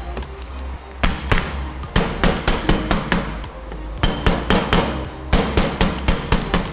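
Hammer tapping metal on metal, driving a heated tapered roller bearing down onto a Toyota HDJ80 front differential carrier through a pusher cut from the old bearing, to seat it fully. Sharp taps come about four a second in three or four quick runs.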